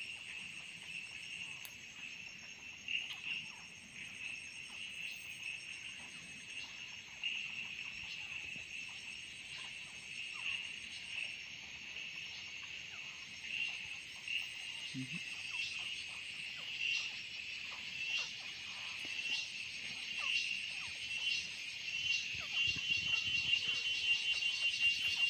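Steady high-pitched insect chorus: a continuous shrill buzz with regular pulses, growing louder near the end.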